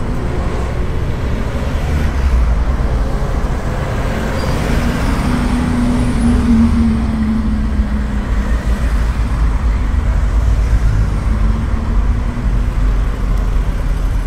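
A loud, steady low rumbling noise, with a low hum standing out for a few seconds around the middle.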